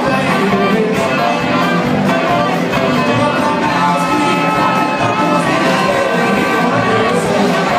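Live blues band playing loudly.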